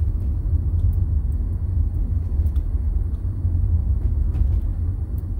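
Steady low rumble of a car driving slowly, heard inside the cabin: tyre and road noise.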